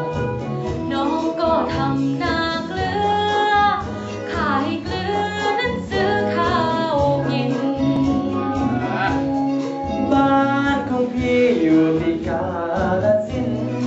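A woman singing a Thai song into a microphone over a steady instrumental accompaniment.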